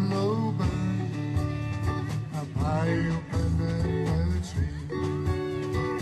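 Music led by guitar, with plucked strings over a steady beat.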